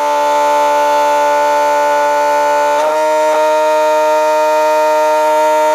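A battery-driven electric motor spinning a home-built Gerard Morin-style generator, giving a steady high whine made of several tones. About three seconds in, with a brief click, the whine drops slightly and changes as a second bulb's load comes on.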